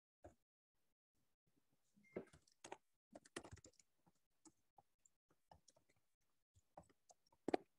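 Faint typing on a computer keyboard: irregular single keystrokes, a quick run of keys about two seconds in, and one louder keystroke near the end.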